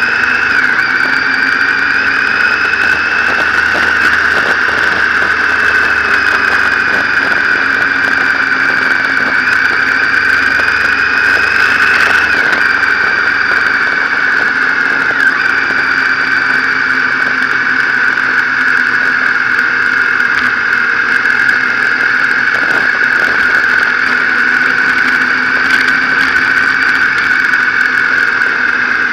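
Motorcycle running at road speed, heard from the bike itself. A steady high-pitched whine sits over the engine and wind noise, its pitch drifting slightly up and down as the speed changes.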